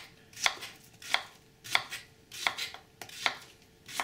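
Kitchen knife slicing a plantain into rounds on a plastic cutting board: about six evenly spaced cuts, each a short knock of the blade on the board.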